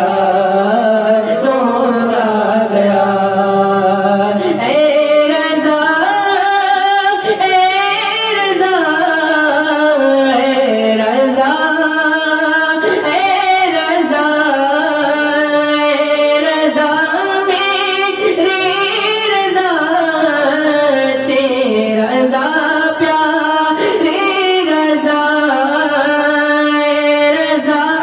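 A young man singing a naat solo into a microphone, drawing out long, ornamented notes that slide up and down in pitch without a break.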